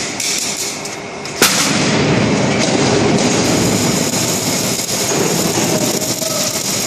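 Loud, steady factory-floor machinery noise, with a single sharp bang about one and a half seconds in, after which the noise runs a little louder.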